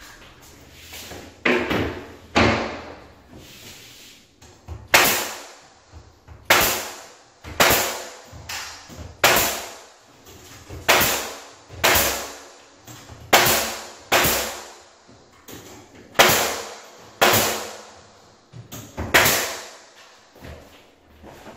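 Nails being driven into wood trim: about a dozen sharp strikes at an uneven pace, roughly one every second or two, each fading quickly.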